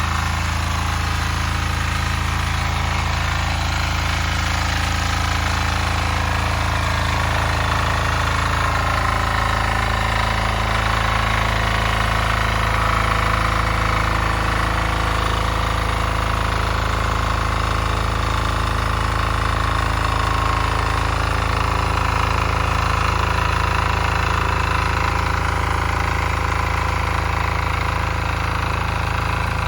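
Weima single-cylinder diesel walk-behind tractor running steadily at an even pitch while rotary-tilling the soil.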